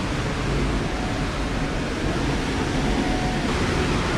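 Steady rush of tropical-storm wind and heavy rain, with a fluctuating low rumble from the wind.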